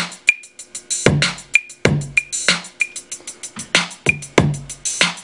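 Programmed hip-hop drum loop playing back from a Native Instruments Maschine: heavy drum hits roughly every half second over a fast, steady tick.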